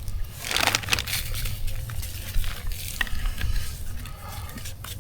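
Raw chicken wings being mixed with seasoning: soft, irregular wet squishing and shuffling, with a few small clicks.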